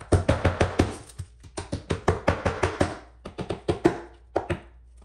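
Hammer driving 1¼-inch roofing nails through GoBoard LT foam backer board into the wooden subfloor: quick runs of sharp blows, several to each nail, with short pauses between the runs.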